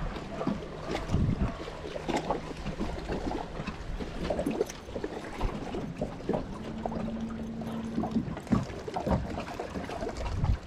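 Water lapping and sloshing against an aluminum jon boat's hull, with small knocks and rattles on the deck. A steady low hum comes on twice for a second or two at a time.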